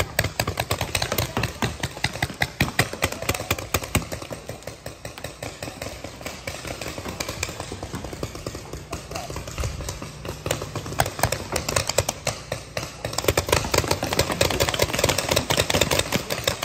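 Paintball markers firing rapid strings of shots, several to the second, heaviest near the end.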